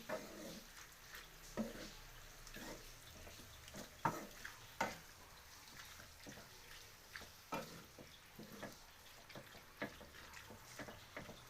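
Cooking utensil stirring food in a pan, with irregular faint scrapes and clicks of the utensil against the pan.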